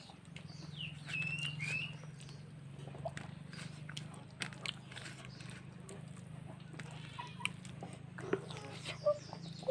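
A person chewing and biting into rice and vegetable curry, with small wet mouth clicks scattered throughout. Chirping calls rise and fall about a second in, and short clucks come near the end.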